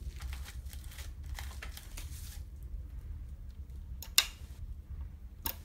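Rustling handling noise, then a sharp click about four seconds in and a smaller one near the end, as a hand works the linkage rods on the powerhead of a Hidea 9.8 outboard that is not running.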